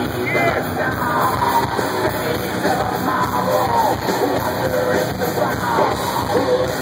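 A live heavy rock band playing loud through the concert PA: electric guitar and drums, with yelled vocals.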